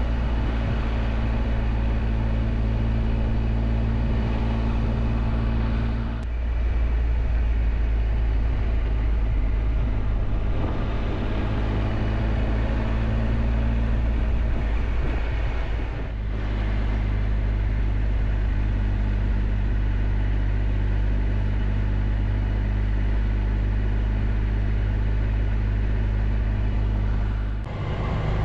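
Triumph Tiger Explorer 1200's three-cylinder engine running at a steady cruise, heard from on the bike, with road noise. The engine note changes abruptly three times: about six seconds in, midway, and near the end.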